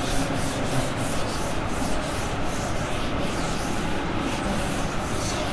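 Writing by hand: a run of short, scratchy strokes, about three a second, as the differentiation is written out, over a steady background hiss.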